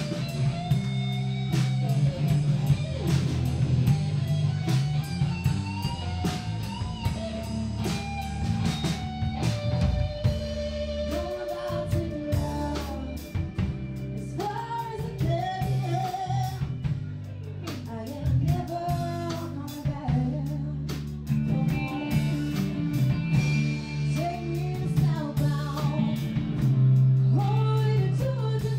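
Live band playing a song: drum kit, acoustic and electric guitars, with a singer's voice over them.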